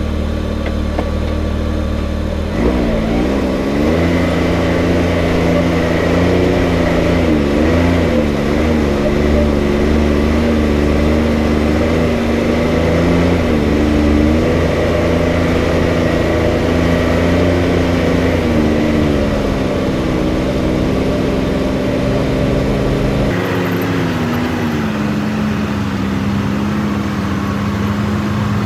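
Can-Am Maverick X3 side-by-side's turbocharged three-cylinder engine running under varying throttle, its pitch rising and falling again and again. Near the end the deep rumble drops away suddenly.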